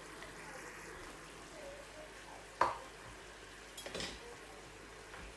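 Chicken simmering in a pan of sauce with a faint, steady sizzle. A single sharp knock comes about two and a half seconds in, and a short run of clicks about four seconds in.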